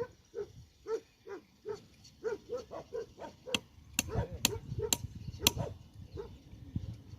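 A dog barking in a steady run of short, quick barks, two to three a second, with a few sharp clicks about halfway through.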